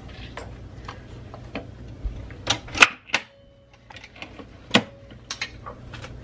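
A run of sharp clicks and clunks as a capsule is dropped into a Nespresso Vertuo coffee machine and its lid is pushed shut. The loudest cluster comes about halfway through, followed by a single knock a little later.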